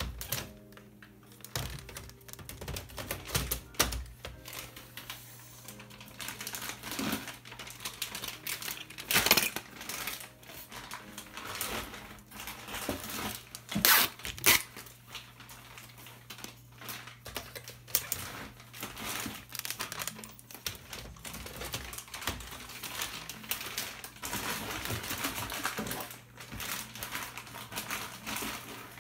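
Plastic toner cartridges being lifted out of and seated into an HP Color LaserJet's cartridge drawer: an irregular run of plastic clicks, knocks and rattles, the sharpest about 9 and 14 seconds in, with some crinkling of packing plastic. A steady low hum runs underneath.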